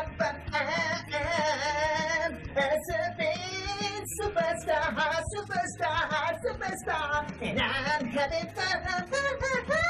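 A song: a high singing voice over a backing track.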